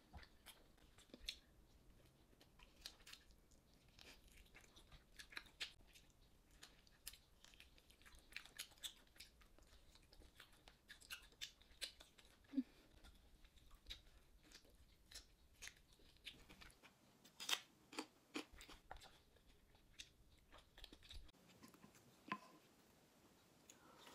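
Close-miked eating sounds: a person chewing and gnawing pork ribs. Many short, sharp clicks and smacks come a few at a time, with a cluster of louder ones a little past halfway.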